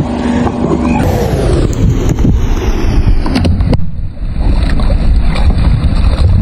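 Car tyre slowly rolling onto cardboard juice cartons and crushing them, with crackling, a couple of sharp snaps a little past halfway, and juice squirting out, over a heavy low rumble.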